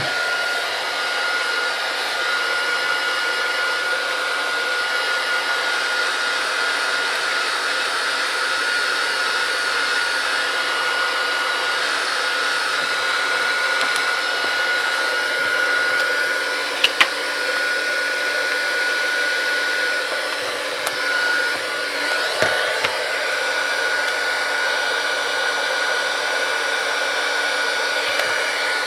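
Hot-air heat gun blowing steadily with a constant whine, warming the tablet's screen glass to soften the adhesive holding it. A sharp click about 17 seconds in and a few light knocks around 22 seconds.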